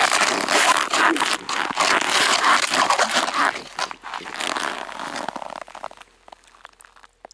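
Ice scoop scraping and crunching through slush and ice shards in an ice-fishing hole, in quick repeated strokes. It thins out about four seconds in, leaving a few faint clicks.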